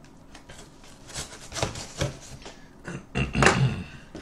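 Cardboard shipping box being handled and turned over in the hands: scattered knocks and rustles of the cardboard, with a louder cluster of thumps and scrapes about three seconds in.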